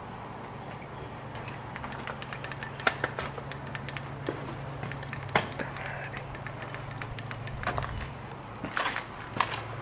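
Footsteps with scattered sharp cracks and knocks, as of stepping over debris and old wooden boards; the loudest snaps come about three, five and a half and nine seconds in. A steady low hum runs underneath.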